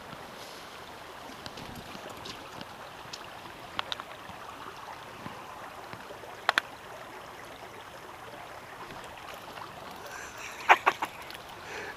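Shallow brook running over stones in a steady wash, with a few sharp clicks and taps, the loudest cluster near the end.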